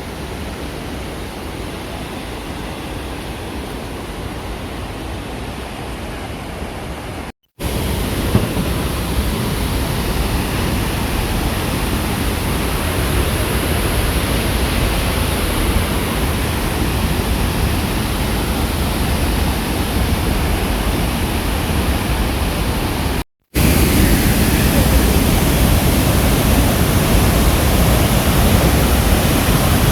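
Steady rushing of Tegenungan waterfall, in three stretches split by two brief cuts, each stretch louder than the one before.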